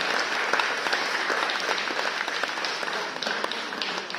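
A group of people applauding, many hands clapping at once, thinning out toward the end.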